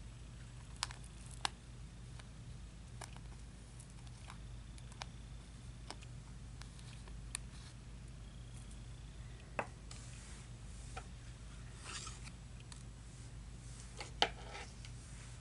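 Scattered small, sharp clicks and taps, irregularly spaced, as diamond-painting drills are handled and pressed onto the canvas, over a faint steady hum.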